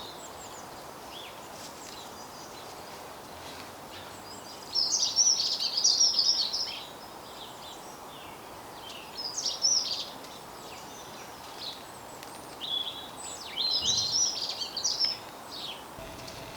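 A small songbird singing in quick, twittering phrases, with three louder bursts, over a steady outdoor background hiss.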